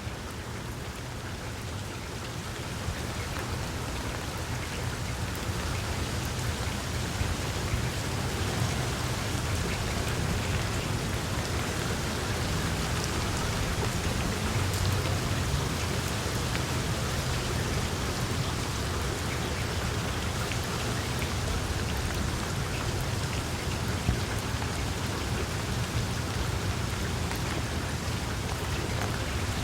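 Steady rain falling on tree leaves, with many small drops ticking through a constant hiss; it grows a little louder over the first several seconds, then holds steady.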